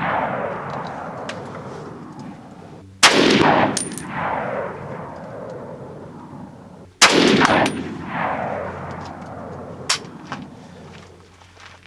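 Saiga .308 semi-automatic rifle firing two single shots about four seconds apart, each followed by a long echo dying away over a few seconds. Near the end there is a shorter, sharp crack.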